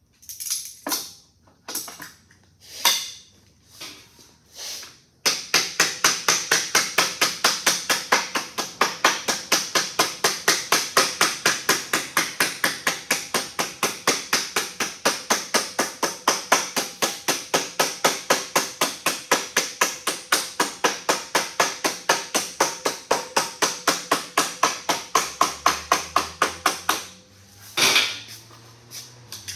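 A mallet tapping along the edge of 26-gauge galvanized sheet metal clamped over a board, folding the edge over into a hem. A few separate knocks come first. About five seconds in, fast, even tapping starts at about four strikes a second and runs for some twenty seconds, then stops, and a couple of single knocks follow near the end.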